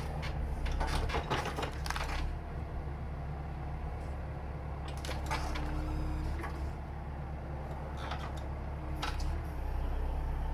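Heavy earth-moving machine running steadily at a low hum, with occasional clunks and scrapes as it works at pulling up tree stumps.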